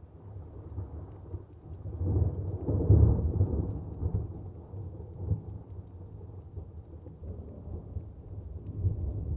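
Distant rolling thunder: a deep rumble that swells about two seconds in, peaks around three seconds, slowly dies away and starts building again near the end, with faint raindrops pattering.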